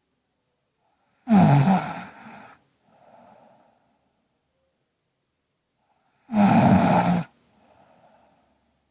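A girl snoring in her sleep: two loud snores about five seconds apart, each with a low pitch that drops slightly, and each followed a moment later by a softer breath.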